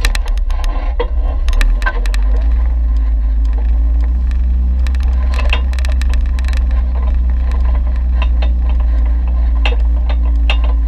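Off-road vehicle crawling down a rocky dirt trail, heard from a camera mounted on it: a steady low rumble with frequent clicks, knocks and rattles from the rough ground, thickest in the first couple of seconds.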